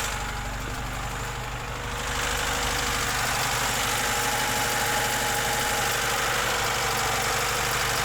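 VAZ 2107's four-cylinder engine idling steadily with a knock.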